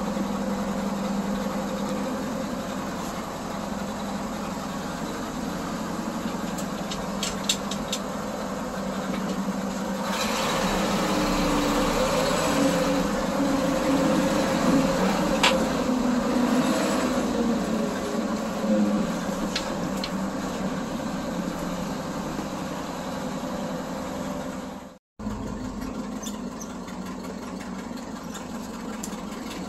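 Engine of an old truck running, heard from inside its cab; the engine gets louder about a third of the way through and eases back. After a brief break near the end, an engine runs steadily again.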